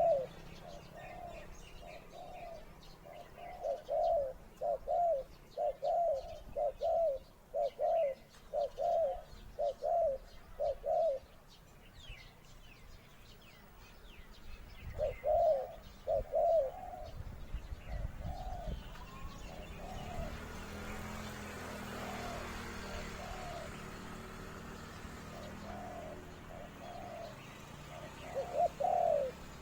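A dove cooing in runs of short, quickly repeated notes, pausing a few seconds between runs, with faint small-bird chirps above. The title calls the cooing a good voice with unclear phrasing.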